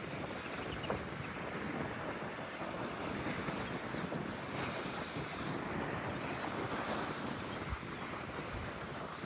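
Sea waves and wind, with wind buffeting the microphone; a steady, even noise.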